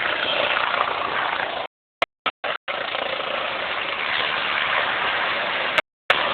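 Aircraft engine noise at an air show: a steady rushing drone, broken by sudden silent gaps where the recording cuts out, about two seconds in and again near the end.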